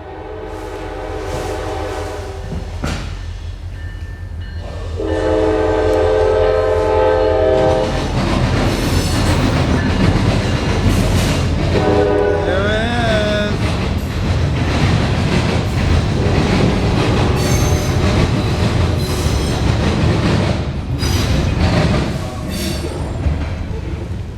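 A diesel-hauled freight train's air horn sounds twice, a shorter blast then a longer, louder one, as the locomotive approaches. The locomotive's engine rumble and the wheels clattering over the rails then fill the rest, with a brief wavering wheel squeal part way through.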